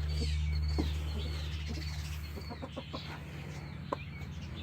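Chickens clucking and chirping, over a steady low hum, with a few light knocks.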